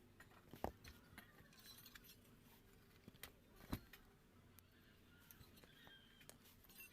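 Faint, scattered clicks and clinks of small hard objects being handled. Two sharper clicks stand out, about half a second in and just under four seconds in.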